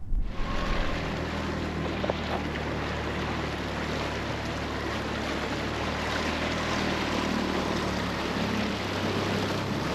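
Inflatable dinghy under way: its outboard motor running steadily, with wind buffeting the microphone and water rushing past the hull.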